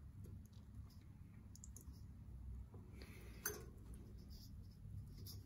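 Faint scattered clicks and rustles of a plastic wire nut being twisted by hand onto the ceiling fan's wires, the sharpest click about halfway through, over a low steady room hum.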